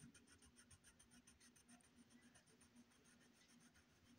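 Faint scratching of a coloured pencil on paper, in quick, even back-and-forth strokes as it colours in lightly.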